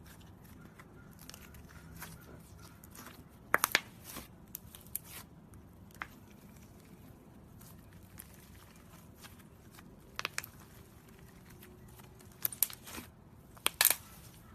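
Slime being handled, with clusters of sharp crackling pops and clicks: the loudest near the 4-second mark and just before the end, with smaller ones around 10 and 12½ seconds.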